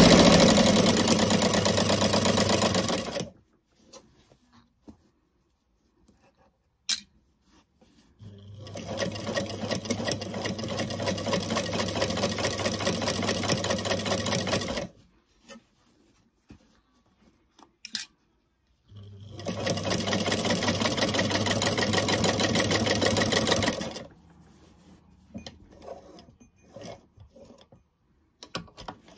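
Vintage Gamages electric sewing machine stitching fabric in three runs of fast, even stitching. The first stops about three seconds in, the second runs about six seconds from around eight seconds in, and the third runs about five seconds from about nineteen seconds in. Short clicks and light handling sounds fall in the pauses.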